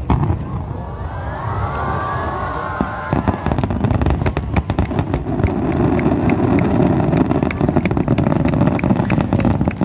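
Fireworks display finale: a dense, rapid barrage of bursts and crackling, with rising whistles of shells going up in the first few seconds.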